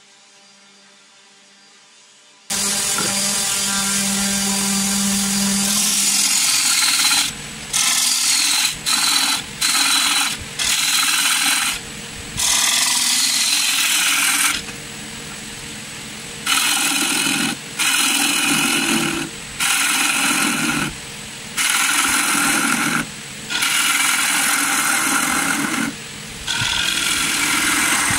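A wood lathe with a gouge cutting into the spinning wooden disc, a loud shaving sound that breaks off and starts again about a dozen times as the tool is lifted between passes, with the lathe running underneath. It begins about two and a half seconds in, after a quiet low hum.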